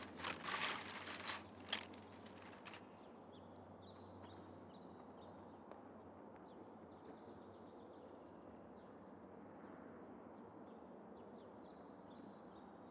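Faint soundscape: rustling and crackling bursts for about the first three seconds, then a steady low hiss scattered with many short, high chirps.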